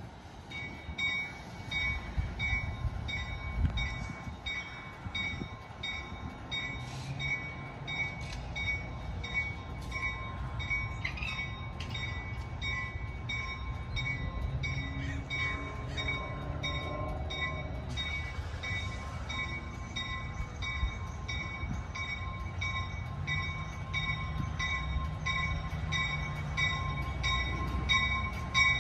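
Amtrak passenger train departing, cab car leading: a low, steady diesel rumble from the train's locomotive, growing a little louder as the train approaches near the end, with a bell ringing steadily throughout.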